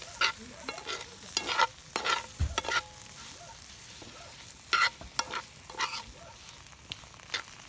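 Shrimp sizzling in a hot pan while being stirred, the utensil clattering against the metal at irregular moments over a steady frying hiss.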